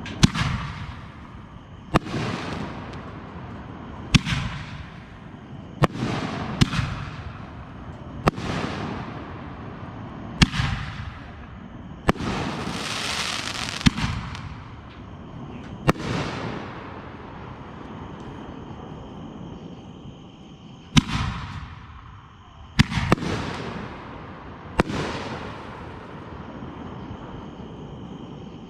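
Aerial fireworks bursting overhead: sharp bangs about every two seconds, each trailing off in a fading crackle. About halfway through comes a longer crackling hiss of about two seconds, then after a pause of several seconds three more bangs.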